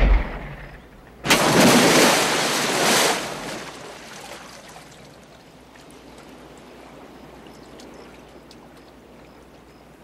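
Water gushing and spraying from a broken fire hydrant on a film soundtrack: a loud rush starts about a second in and lasts about two seconds, then settles into a steady, quieter rush that slowly fades.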